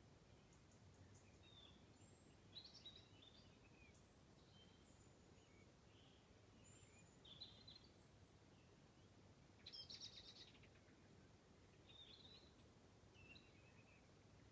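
Faint songbirds singing: scattered short chirps and high whistles, with the loudest burst of song about ten seconds in, over a steady low background hiss.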